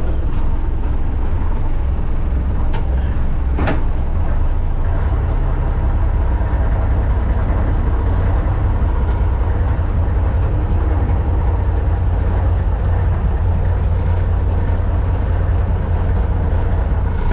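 The diesel engine of a 1951 Leyland bus cut down into a tow truck, idling steadily just after a push-button start, heard from inside its cab. A single sharp click about four seconds in.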